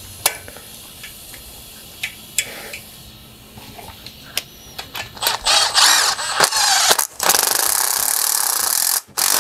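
Cordless Milwaukee Fuel impact driver tightening down a valve spring compressor to compress a new valve spring on a Gen III Hemi cylinder head. It runs in short bursts about five seconds in, then steadily for about two seconds, and stops abruptly. Before it come a few light metallic clicks as the tool is set in place.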